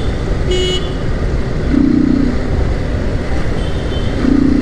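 Bajaj Pulsar NS125 motorcycle running through city traffic, its engine and road and wind noise steady under the rider's microphone. Short horn honks sound over it, one about half a second in and others around two seconds and near the end.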